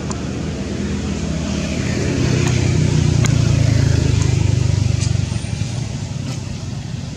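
A motor vehicle's engine running, growing louder about two seconds in and dropping off again about five seconds in, as if driving past. A few faint ticks are heard over it.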